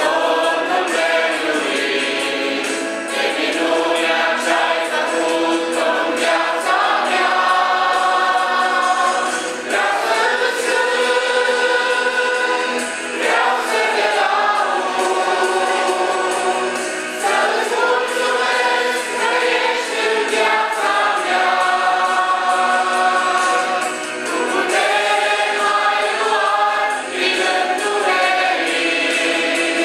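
Mixed group of men, women and children singing a Romanian worship song together as a small church choir, in long sustained phrases.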